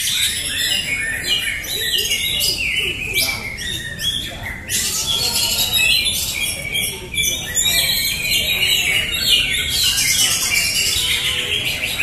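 Many caged greater green leafbirds (cucak hijau) singing at once in a songbird contest: a dense, continuous tangle of overlapping high chirps and whistles.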